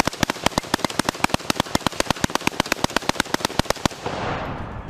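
A long burst of fully automatic gunfire, even shots at about ten a second, stopping about four seconds in, followed by a brief rush of noise.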